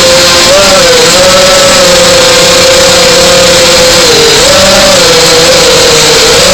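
Radio-controlled model airplane's motor running, heard through the onboard camera's microphone. Its pitch holds steady, then wavers up and down several times as the throttle changes, under a heavy rush of wind noise, and the sound is overloaded.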